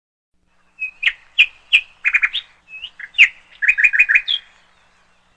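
A bird chirping: a quick run of short, sharp chirps and trills starting about a second in and stopping shortly before the end.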